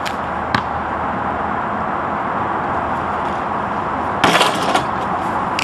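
A basketball bouncing on asphalt, two sharp bounces near the start, over a steady rushing background noise. About four seconds in, a short burst of rattling knocks as the thrown ball comes down around the hoop.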